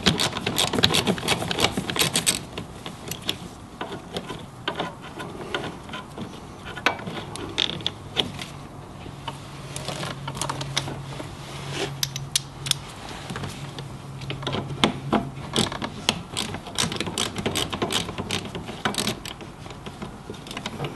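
A hand ratchet with a 10 mm socket clicking as bolts are backed out: a fast run of clicks at first, then scattered short runs of clicks.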